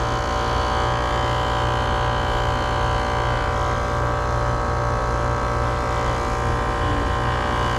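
Outdoor air-conditioner condenser unit running steadily, its compressor and condenser fan motor giving a constant hum with a cluster of steady tones. The compressor is running against very high head pressure, and the condenser fan motor is about to go out.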